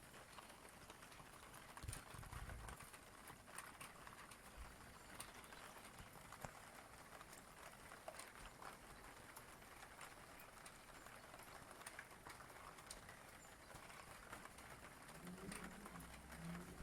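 Faint rain: a steady hiss with scattered drops ticking. A faint low pitched sound joins near the end.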